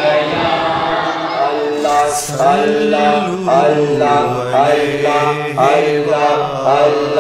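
Devotional chanting: a voice repeats a short phrase in a steady rhythm, about once a second, settling into the repeated pattern about two seconds in.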